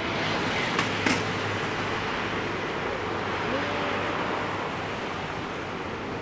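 Steady rushing jet noise from the four engines of a Boeing 747-400, with two sharp clicks about a second in.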